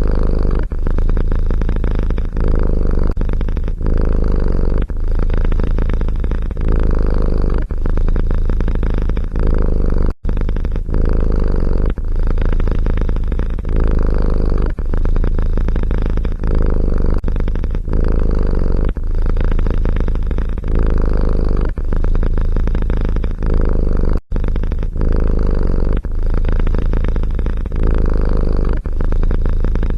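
Domestic cat purring loudly, close up, in steady in-and-out cycles of about a second each, broken by two very brief gaps.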